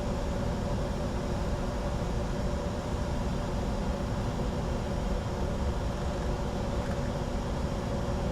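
Steady cockpit noise of a Bombardier Challenger 605 business jet in descent: a constant rush of airflow with a deep rumble and a steady hum of a few fixed tones.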